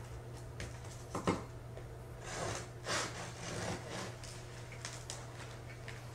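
A knife sawing through a freshly baked, crusty baguette on a paper-covered board, giving a few short scraping crackles, over a low steady hum.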